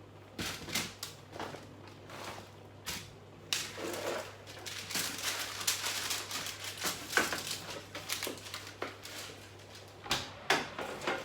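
Kitchen handling sounds as chicken is put into the oven: irregular knocks and clatter, with a stretch of rustling a few seconds in, over a steady low hum.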